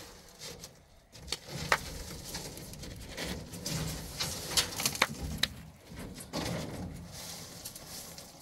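Hand brush sweeping sand and dust across a pickup truck's bed: irregular scratchy strokes with a few sharp scrapes and knocks.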